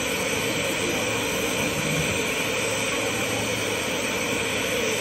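Glassworker's bench torch burning steadily, a constant rushing hiss of the gas flame.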